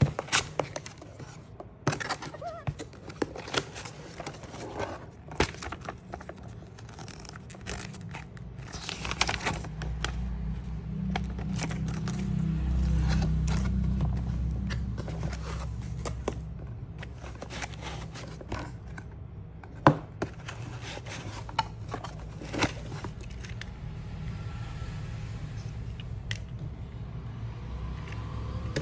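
Cardboard box and its foam insert being handled: flaps folding open, cardboard scraping and rubbing, with scattered taps and knocks.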